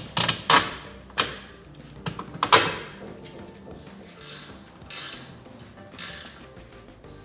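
Tools at work on car suspension: a run of sharp metallic clicks and knocks, then several short bursts from a power tool, each under half a second.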